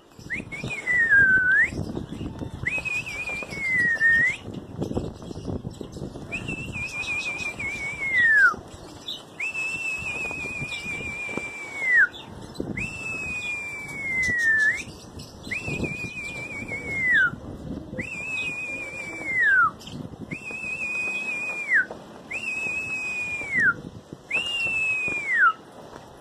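A person whistling: about ten long whistles in a row, each held with a slight waver and ending in a falling glide. This is the whistle a pigeon flyer uses to keep his flock up in the air.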